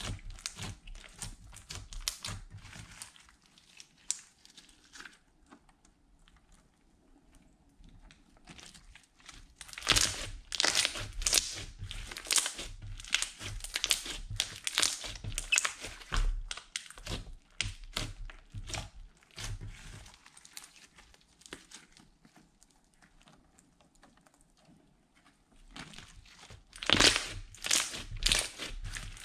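Purple glitter slime being kneaded and pressed by hand, giving quick clusters of wet crackles and pops. The crackling grows loud about a third of the way in, softens in the middle and picks up again near the end.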